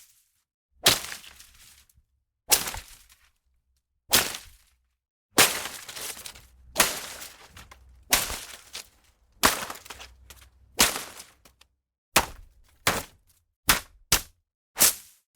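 Foliage being struck and whipped: a series of sharp swishing hits into leaves, each followed by a brief rustle, about a dozen in all, spaced roughly a second and a half apart at first and coming faster near the end.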